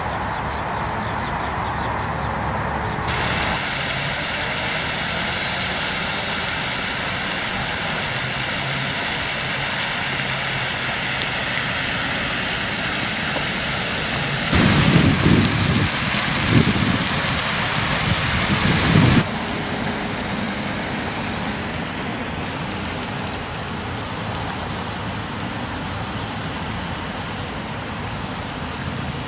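Steady outdoor road-traffic noise. Past the middle, a louder low rumble lasts about five seconds and then stops suddenly.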